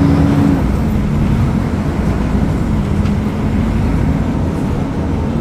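Diesel engine of a Mercedes-Benz O500UDA articulated bus running steadily under way. Its pitch drops a little about half a second in, then holds.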